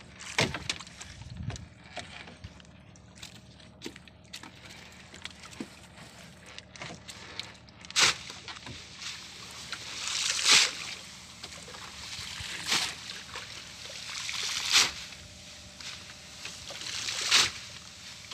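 Water sloshing and splashing beside a small wooden outrigger boat, in swells about every two seconds from midway on, over scattered light clicks and rattles of collapsible net traps being handled.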